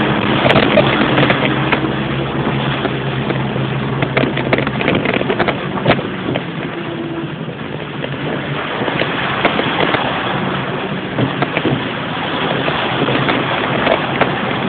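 A 4x4's engine running with a steady hum that fades after about four seconds, under a constant rushing, crackling noise of rain and water around the vehicle as it drives through flooded streets.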